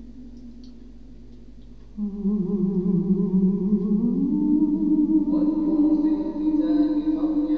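Islamic call to prayer (adhan) chanted in long, wavering held notes. It comes in loudly about two seconds in after a quieter stretch and steps up in pitch about two seconds later.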